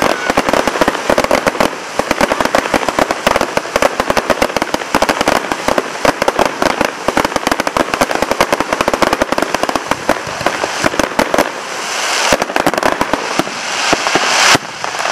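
Fireworks display: a dense barrage of crackling stars, many rapid pops and bangs overlapping without a break. Near the end it builds into a louder hiss, cut short by a sharp bang.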